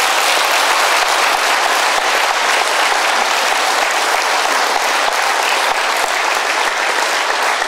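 Large audience applauding: dense, steady clapping that holds level throughout.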